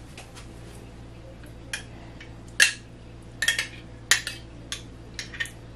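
A metal spoon clinking and tapping against a glass jar and a mixing bowl while scooping out yogurt: a string of scattered sharp clicks, the loudest about two and a half seconds in.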